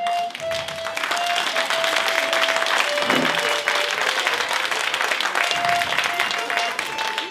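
Audience applauding, with a simple tune of long held notes played over it on a small hand-held accordion.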